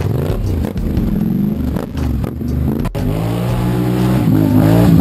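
Quad bike (ATV) engine revving unevenly as the machine crawls over an obstacle. After an abrupt cut about three seconds in, an engine revs up again with rising pitch.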